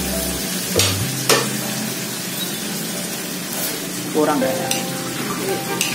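Jengkol slices sizzling in a wok of spice paste while a metal spatula stirs and scrapes them around the pan, with a few sharp knocks of the spatula against the wok.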